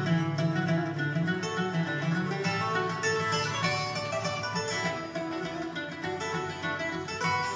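Bluegrass band playing an instrumental passage on acoustic guitar, mandolin and bass, with plucked notes in a steady rhythm.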